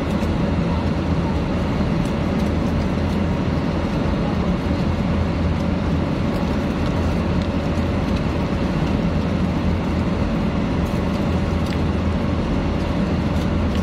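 Airliner cabin noise: a steady, unchanging rushing drone, heavy in the low end, with a faint constant hum above it.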